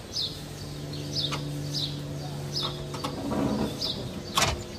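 Metal suspension parts clinking and rattling as hands work at the rear shock and sway-bar link, with one sharp metallic clink near the end. A bird chirps repeatedly in short high notes, and a low hum stops about three seconds in.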